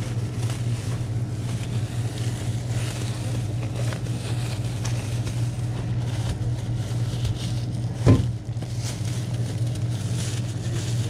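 Plastic shopping bags rustling and items being handled while bagging at a store checkout, over a steady low hum. One sharp knock about eight seconds in.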